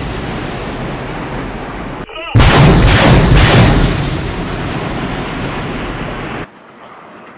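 Truck-mounted multiple rocket launcher firing a ripple salvo: a loud, continuous rushing roar of rockets leaving the tubes. It breaks off about two seconds in, returns suddenly with a rapid pulsing of launches for about a second and a half, then runs on as a steady rush until it cuts off abruptly near the end, leaving a much quieter rushing background.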